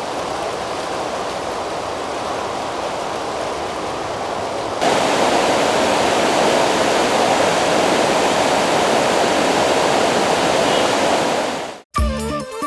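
Swollen river in flood, its water rushing as a steady, dense noise that jumps louder about five seconds in and cuts off abruptly near the end.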